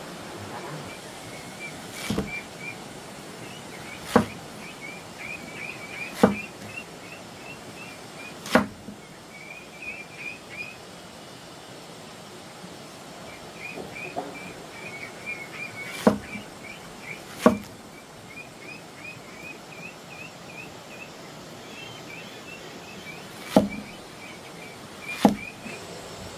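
Eight sharp, loud knocks or chops at irregular intervals, over a constant background of short high chirps in repeated bouts.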